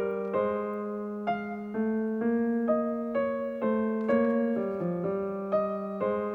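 Background piano music: a slow melody of single notes, a new note about every half second, over a low sustained note.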